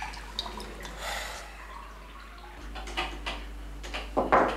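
Faint scattered taps of typing on an old computer keyboard, over a low room hum, with a brief louder sound near the end.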